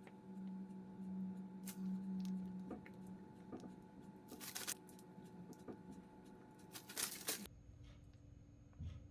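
A faint low steady hum with scattered clicks and a few short scraping or rustling noises. The hum stops abruptly near the end.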